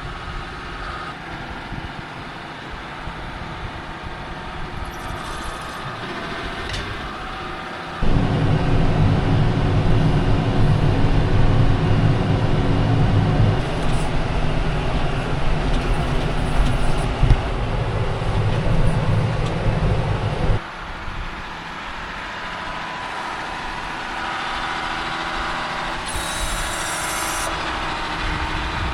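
Heavy diesel farm machinery engines running, in three stretches that change abruptly about eight seconds in and again about twenty seconds in; the middle stretch is louder, with a steady low engine drone.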